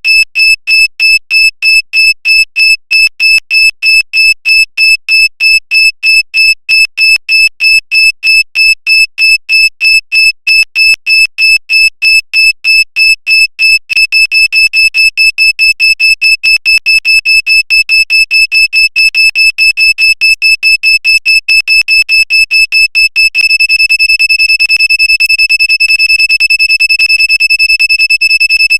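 Vehicle reverse parking sensor beeping a repeated high-pitched tone. The beeps speed up about halfway through as the obstacle is almost near, then become one continuous tone near the end, signalling the obstacle is at the nearest distance.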